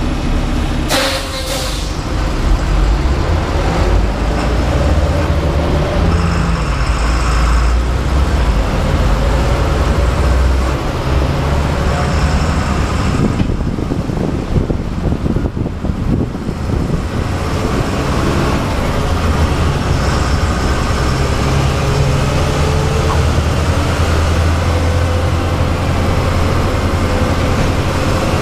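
Bus diesel engine running as the bus is driven through traffic, heard from the driver's seat, with a short hiss of air from the brakes about a second in.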